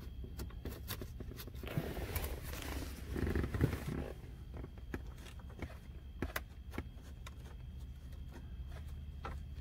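Hand work on car interior trim: a rustling scrape about two seconds in, with scattered light clicks and taps throughout, over a steady low hum.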